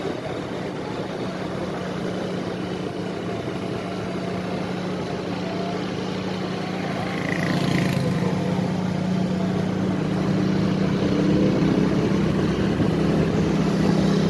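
A vehicle's engine running steadily on the move, getting louder about halfway through, with a brief higher-pitched sound about seven seconds in.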